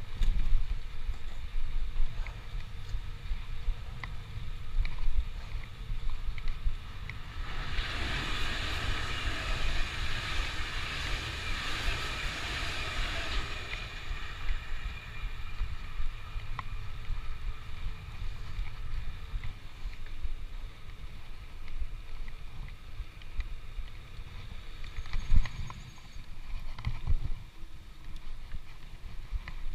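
Wind buffeting the microphone of a moving ride, a steady low rumble. About eight seconds in, a louder rushing hiss rises and lasts about six seconds.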